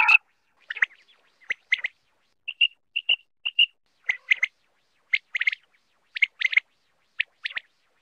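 Male common quail calling: short, sharp notes in quick clusters of two or three, repeated every half second to a second.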